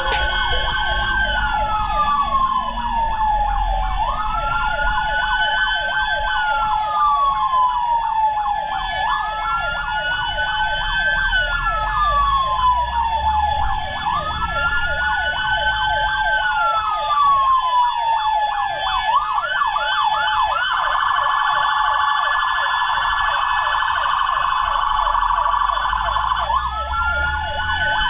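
Fire truck sirens: a wail that rises quickly and falls slowly about every five seconds, over a steady tone and a fast pulsing siren. About nineteen seconds in it switches to a quick yelp and then a rough, rapid warble for about six seconds before the slow wail returns.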